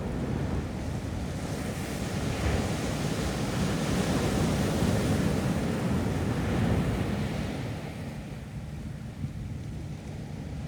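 Ocean surf breaking on a beach: the wash builds about a second in, is loudest through the middle and dies down near the end. Wind buffets the microphone, adding a low rumble.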